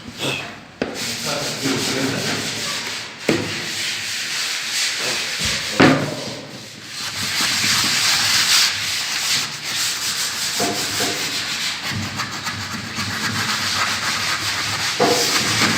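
Sandpaper scratching back and forth over wood filled with putty and sealer, a continuous rasping with a couple of sharp knocks along the way.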